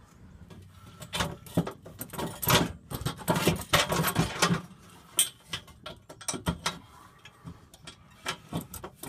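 Hand wrench loosening the nut on a U-bolt clamp around a car's exhaust pipe: quick runs of metal clicks and clinks, busiest in the first half, then sparser.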